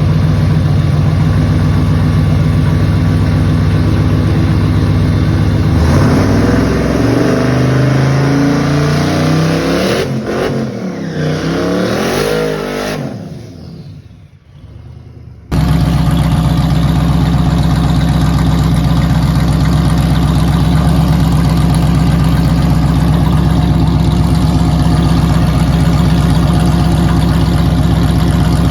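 A drag-race vehicle's engine running steadily, then launching about six seconds in, climbing in pitch through the gears and fading away into the distance. After an abrupt cut a second engine runs steadily, beginning to rev up near the end.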